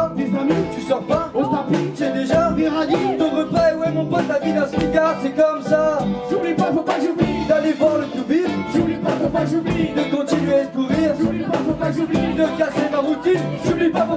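Live band music: sung vocals over electric guitars, bass, drums and accordion, with a steady drum beat.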